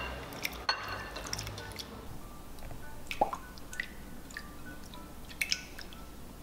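Raw oysters dropped into a glass bowl of water and rinsed by hand: scattered splashes, drips and small clicks as the oysters and water are swished around in the bowl. Soft background music plays underneath.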